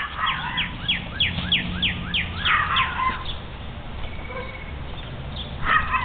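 Wild songbirds singing. A run of quick, high, falling whistled notes repeats about three times a second for roughly three seconds, then fainter chirps follow, and a fresh burst of song comes near the end, over a low steady rumble.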